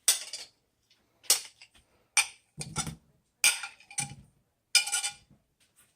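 A metal utensil clinking and knocking against a skillet and dish, about seven sharp knocks with a short metallic ring, as banana slices are put into the pan.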